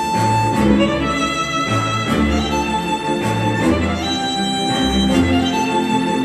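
Instrumental music with violin and strings over a repeating bass line, played through a JBL Charge 4 Bluetooth speaker.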